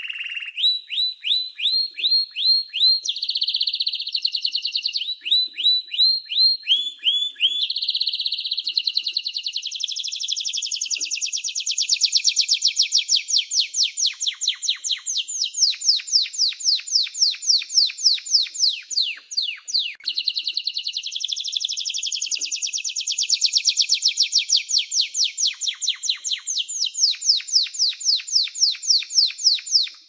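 Domestic canary singing a long, continuous song. It opens with short phrases of repeated notes that change pitch every second or two, then runs into long, rapid rolling trills with brief breaks.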